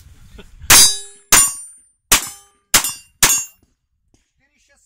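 Five pistol shots, about two a second, each followed by the short metallic ring of a steel target plate being hit.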